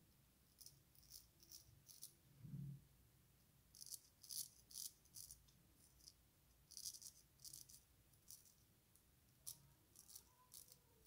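Faint, quick scrapes of a circa-1900 Antoine Touzet frameback straight razor cutting stubble on the upper lip, coming in short clusters of strokes with pauses between them.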